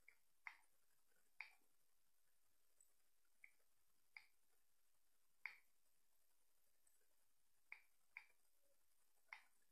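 Buttons on a handheld TV/DVD remote control clicking as they are pressed, about nine short sharp clicks spaced irregularly, some in quick pairs.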